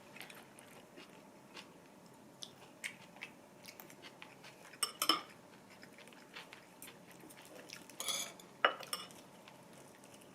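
Eating utensils clicking and clinking against plates and dishes, scattered light taps with a few louder clinks about five seconds in and again around eight seconds.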